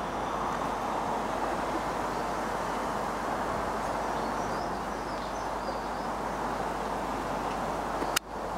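A train running past on the line, giving a steady rumbling rush. A single sharp click comes near the end, and the sound dips briefly after it.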